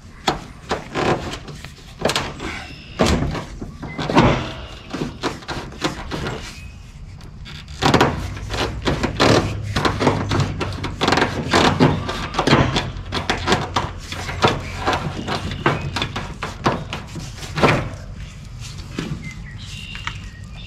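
Tools and metal parts knocking and clanking irregularly, many sharp knocks in quick, uneven succession, from hands-on work on the bent steering parts of a boat's stern drive.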